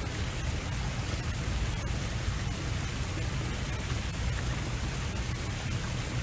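Steady outdoor noise with a heavy, fluttering low rumble, typical of wind on the microphone.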